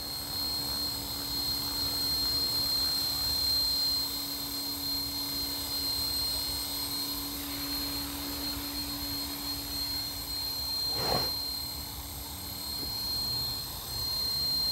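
Align T-Rex 450 LP Dominator electric RC helicopter hovering: a steady high-pitched whine from the brushless motor and drivetrain over the hum of the spinning rotors. There is a short, louder sweep in pitch about eleven seconds in.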